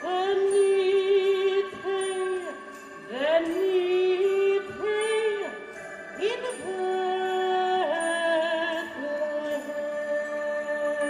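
Christmas show music with jingle bells, its melody moving in long held notes with vibrato that slide from one pitch to the next.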